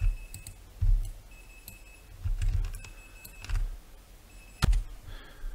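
A handful of sharp computer mouse and keyboard clicks while nodes are added and wired up in Blender, with a few dull low thumps between them; the sharpest click comes near the end.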